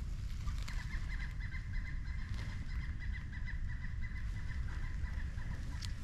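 Belted kingfisher giving its rattling call: a long run of rapid, dry notes, starting under a second in and lasting about five seconds.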